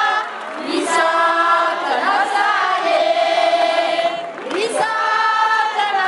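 A crowd singing together in long held notes, in phrases with brief breaks about half a second in and again just past four seconds.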